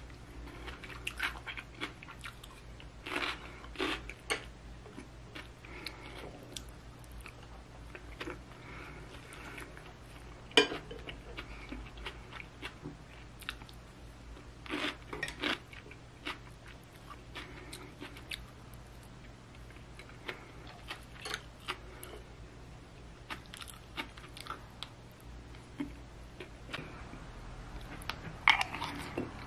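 Close-up eating sounds: chewing and soft crunching of a cabbage-and-bacon rice bowl, with a few sharper clicks of a spoon on the ceramic plate.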